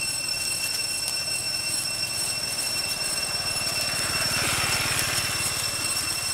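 Cicadas droning: a steady, high-pitched ringing whine that swells into a louder hiss about four seconds in, then eases back.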